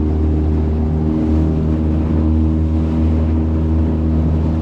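Small boat motor running at a steady, constant pitch with a low, even hum.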